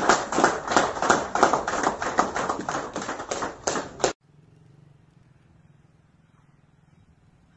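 A small group of people clapping, many quick overlapping hand claps, which cut off suddenly about four seconds in; after that only a faint low hum remains.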